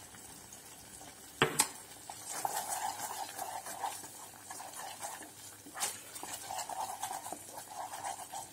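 A wooden spatula stirring thick tomato pizza sauce in a pot as it cooks down and thickens, an uneven scraping against the pan. Two sharp knocks come about one and a half seconds in.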